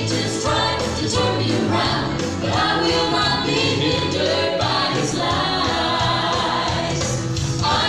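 Family gospel quartet of two men and two women singing live in harmony into handheld microphones through a church PA, over an instrumental backing with a steady bass line.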